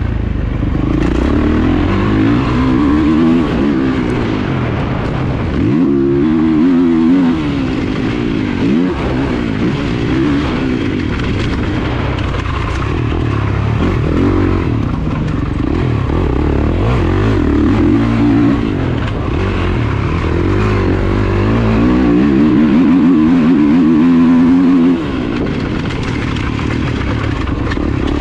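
Motocross race bike's engine under hard riding, revving up and dropping back again and again, with a sudden drop in loudness near the end.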